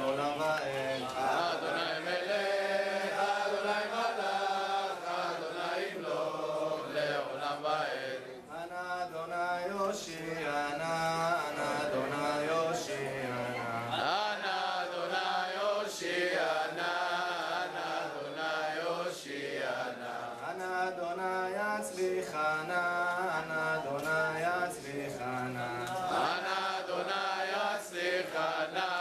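A man chanting Hebrew liturgy into a microphone, a wavering, ornamented melody sung in long phrases with brief breaks between them.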